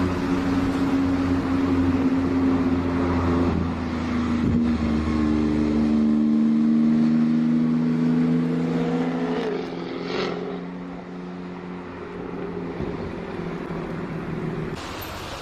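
Sports-car engines and exhausts at low revs as a Porsche 911 GT2 RS and a Jaguar F-Type Project 7 with its supercharged V8 roll slowly past: a steady engine drone with a brief change in pitch about ten seconds in, after which it grows quieter as the cars move away.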